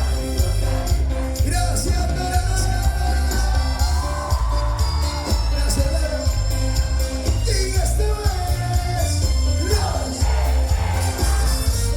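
A live band playing a song with a lead singer over a heavy, steady bass beat.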